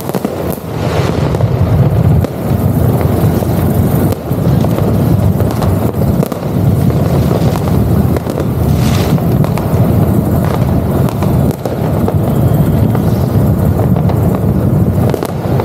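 Motorcycle being ridden along a street: the engine runs under a steady rush of wind on the camera microphone, dipping briefly several times.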